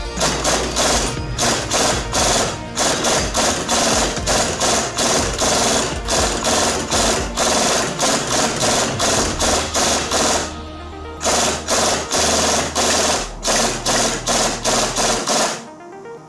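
Background music with a fast, steady beat over a bass line that changes note a couple of times, with a brief break partway through.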